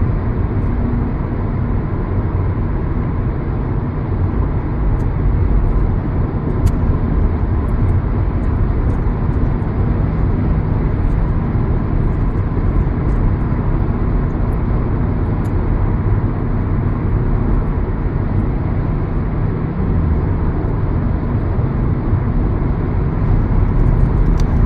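Steady low rumble of a car driving, engine and road noise running evenly throughout.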